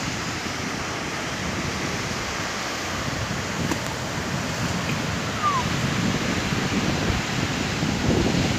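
Steady wash of sea surf mixed with wind buffeting the microphone, with one short falling chirp a little past the middle.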